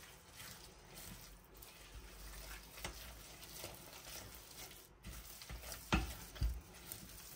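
Silicone spatula stirring and scraping a thick, sugary coconut dough against a stainless steel pot, a soft continuous scraping. Two light knocks come about six seconds in.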